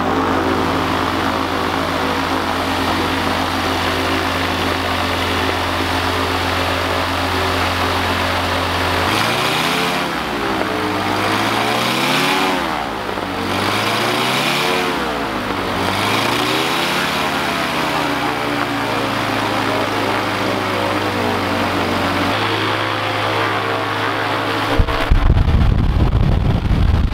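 Rotax 912 ULS four-cylinder boxer aircraft engine running on a test stand during break-in of its brand-new cylinders, pistons and rings. It holds a steady speed, then its revs rise and fall about four times as the throttle is pumped to seat the new rings against the cylinder walls, then it settles back to a steady run. A loud low rumble comes in near the end.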